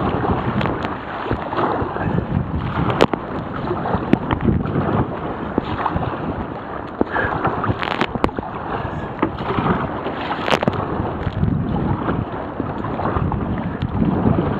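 Strong wind buffeting a waterproof camera's microphone, with rough sea water surging and splashing around a sea kayak. Several sharp clicks cut through, about a third of the way in and again past the middle.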